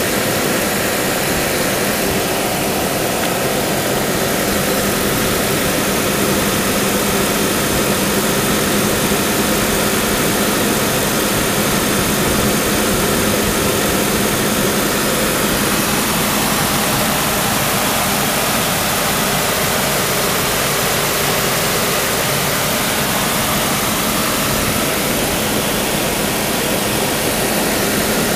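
Car engine idling steadily in the engine bay, a constant hum and hiss with no change in speed.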